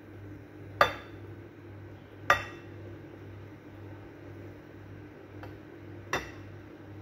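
Metal spoon and fork clinking against a ceramic plate three times, the first two about a second and a half apart and the last about four seconds later, each with a short ring. A steady low hum runs underneath.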